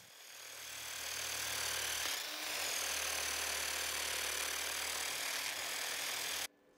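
Cordless drill spinning a rotary wire brush against painted steel, scrubbing the paint off beside a tack weld. The whir builds up over the first second, dips briefly about two seconds in, holds steady and then cuts off suddenly near the end.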